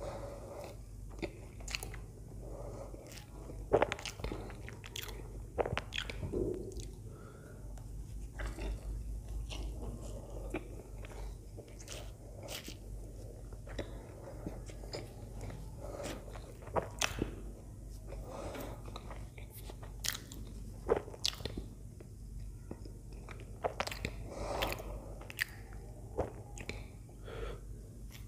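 Close-miked mouth sounds of a person eating soft steamed idli dipped in sambar: chewing and biting, with many irregular sharp clicks and smacks.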